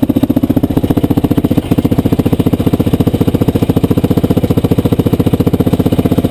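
A Yamaha Rhino side-by-side's single-cylinder four-stroke engine idling steadily with an even, rapid pulse.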